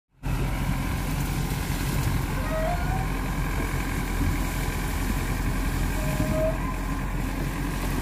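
JCB 3DX backhoe loader's diesel engine running steadily under load while its backhoe arm works against a tree.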